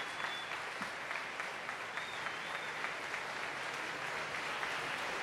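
Audience applauding a finished speech, a steady dense patter of many hands clapping, with two brief thin high tones over it, one near the start and one about two seconds in.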